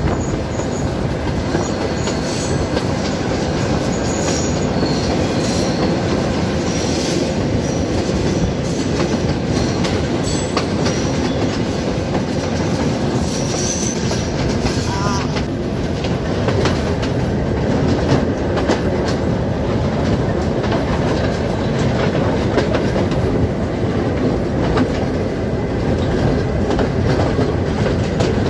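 Passenger train running: the steady rumble and rattle of its carriages and wheels on the track, with light clicks from the rail joints. Short, faint, high wheel squeals come now and then in the first half as the train takes a curve.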